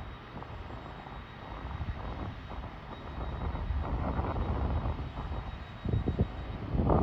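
Class 323 electric multiple unit pulling away, a steady rumble with a faint high whine, under wind buffeting the microphone. The rumble grows louder in the second half, with gusty bursts near the end.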